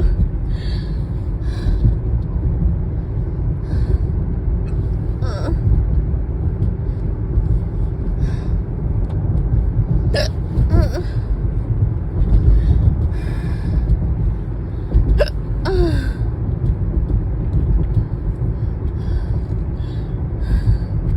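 A person hiccuping three times, sharp and brief, about five seconds apart, with softer breaths in between, over the steady low rumble of a car cabin on the move.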